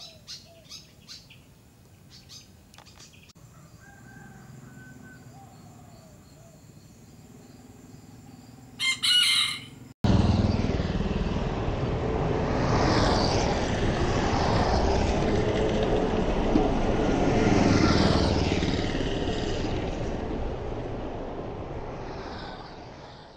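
Faint bird chirps, then a rooster crows loudly for about a second. After a sudden cut, steady road and wind noise from a moving vehicle takes over and fades out near the end.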